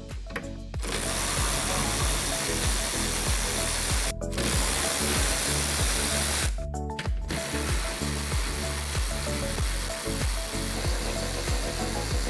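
Cordless electric ratchet with a 13 mm socket running, backing out the hinge retention bolts on a door. It runs in three long spells, stopping briefly about four seconds in and again about seven seconds in.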